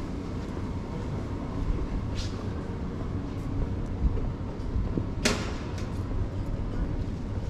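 Outdoor pedestrian-square street ambience: a steady low rumble with a sharp clack about five seconds in and a fainter one about two seconds in.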